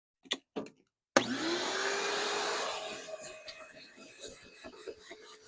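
Two short clicks, then a vacuum cleaner switches on about a second in, its motor whine rising in pitch as it spins up and settling to a steady run. From about three seconds in the sound turns uneven, with many small crackles and clicks.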